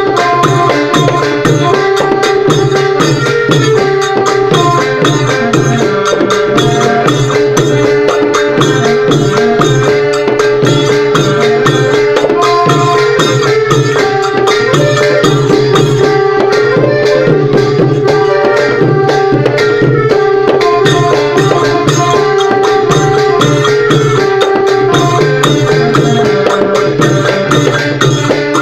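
Thai klong yao long-drum ensemble playing a fast, steady rhythm of drum strokes, with a held melody line sounding over the drums.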